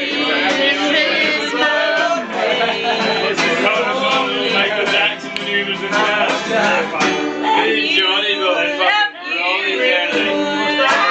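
Acoustic guitar strummed steadily, with voices singing along to it.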